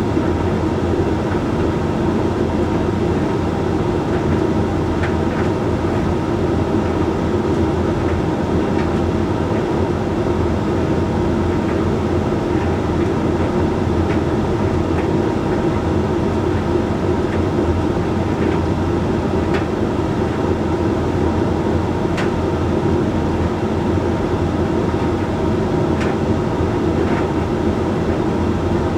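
Hoover Link X Care HLX C10DRGR condenser tumble dryer running mid-cycle on its Whites programme: a steady hum of the drum motor and fan, with a few faint ticks.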